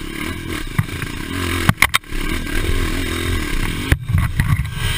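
Dirt bike engine running on a rough trail, its revs rising and falling as the throttle is worked, with the sound breaking off sharply for an instant twice.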